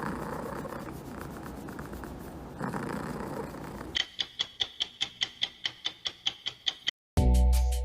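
Clock ticking at about five ticks a second, starting about four seconds in, after a steady noisy room sound. Near the end it cuts out and electronic music with a heavy bass beat begins.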